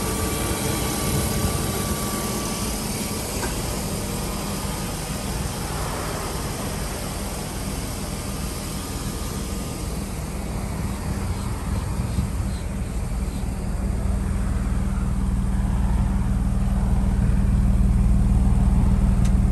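1994 BMW 3 Series (E36) inline-six engine idling steadily, real quiet. The idle grows louder near the end as it is heard at the twin exhaust tips.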